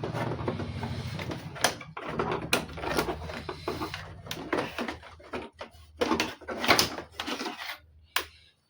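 Plastic back cover of an LED TV being worked loose and lifted off, with a string of clicks, knocks and rattles.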